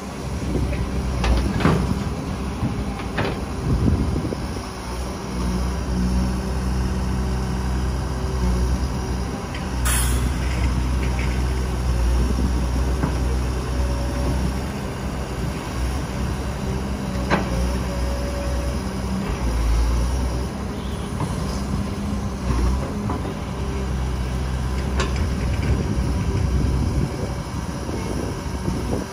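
Kobelco SK250 hydraulic excavator's diesel engine running under load, its note swelling and easing as it digs and swings, with a few sharp clunks of the bucket and soil.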